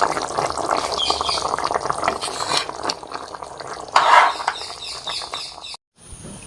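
Thick chicken curry bubbling and crackling in the pot, fading over the first few seconds; a brief clatter about four seconds in, then the sound cuts off abruptly.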